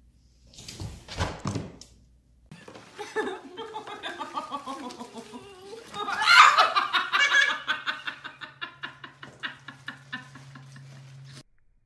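A short burst of noise, then a person laughing. The laughter breaks into loud, rapid laughter about six seconds in and trails off in short bursts.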